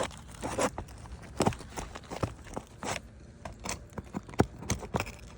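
Irregular scrapes and sharp clicks of a hand tool working under asphalt roof shingles to pull out their nails, the loudest click about four seconds in.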